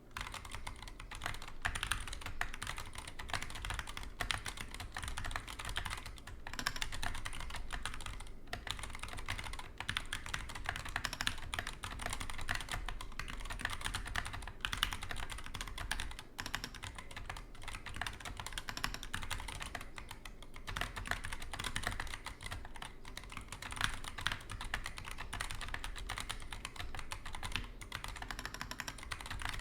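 Typing on a GK61X 60% mechanical keyboard with Zealios V2 67g tactile switches in a plastic case with a metal plate. It is a fast, continuous stream of key clacks that breaks off briefly a few times.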